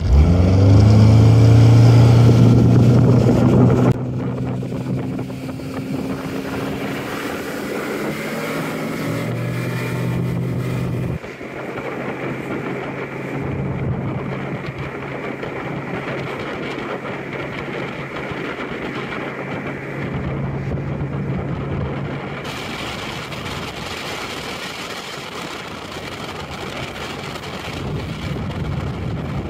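Bass boat's outboard motor throttled up hard, its pitch climbing in the first second. It then runs steadily at speed, with wind and water rushing past.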